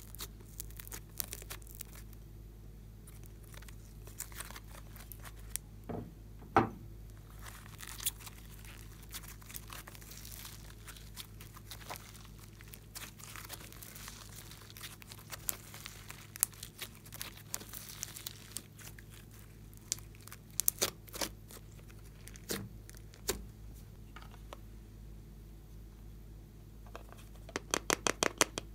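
Sticky slime being peeled off a plastic tray and stretched by hand, making crackling, tearing and popping sounds with scattered sharp clicks. Near the end comes a quick run of clicks.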